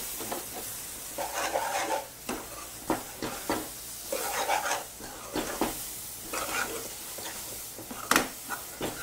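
A metal spoon stirring and scraping a thick, wet dry-fruit laddoo mixture around a pan in repeated strokes, with a sizzle as the freshly added sweetened milk cooks in. A sharper knock of the spoon against the pan comes near the end.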